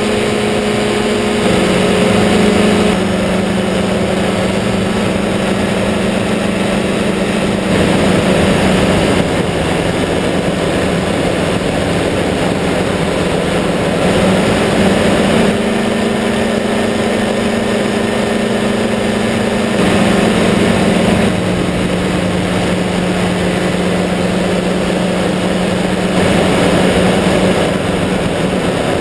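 Kawasaki engine and pusher propeller of an ultralight trike running steadily in flight, with wind rushing over the airframe; the engine note steps slightly up and down a few times.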